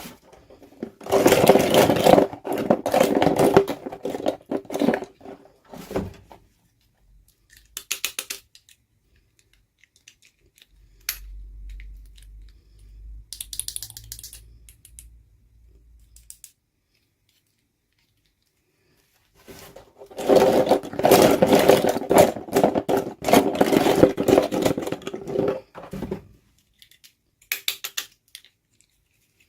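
Small plastic toy parts and packaging being handled, making two long runs of rapid clicking and rattling, with scattered single clicks between them.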